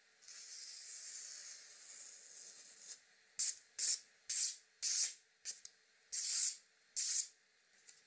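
A knife blade slicing through a sheet of catalogue paper, a paper-cutting test of the edge. One long, drawn-out slice hisses for about three seconds, then about seven quick, short slices follow.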